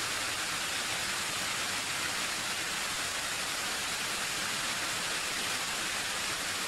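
Fountain spray falling and splashing steadily into a stone basin, a constant rushing hiss of water.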